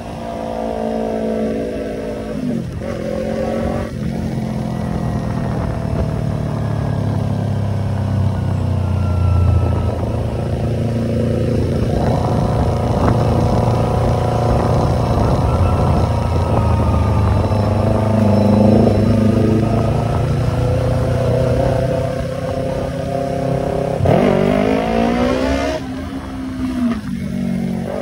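Yamaha YZF-R25's parallel-twin engine running through an aftermarket Tiger exhaust while being ridden. Its pitch climbs and drops again and again, with a quick rise in revs about 24 seconds in.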